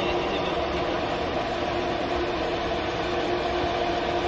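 Steady mechanical hum of an ATC CNC router running as its spindle head travels to the disc-type automatic tool changer for a tool change.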